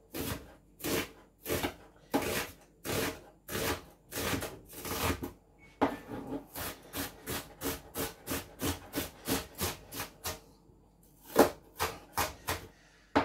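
Large kitchen knife chopping an onion on a plastic cutting board: regular strokes, about one and a half a second at first, quickening to two or three a second about halfway through, with a short pause near the end.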